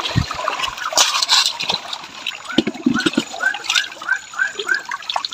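Water splashing and trickling in a plastic gold pan as it is rinsed, washing fine black-sand concentrate down the pan into a metal bowl: the cleanup stage of gold panning.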